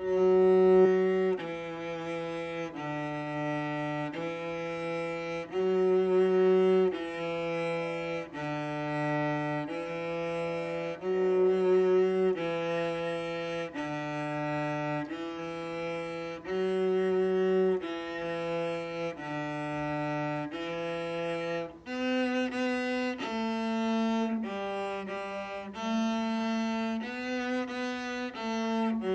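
Solo cello, bowed, playing separate sustained notes about one a second in a short phrase that repeats four times. About 22 seconds in, the line moves higher.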